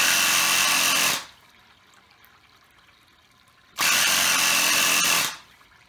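Small air compressor running in two short bursts, each lasting a second or so, a loud noisy rush with a steady whine on top, pressurising a 3D-printed tank held under water for a leak test.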